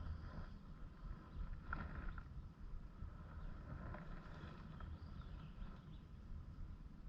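Quiet outdoor ambience: a steady low rumble with a few faint high chirps scattered through it.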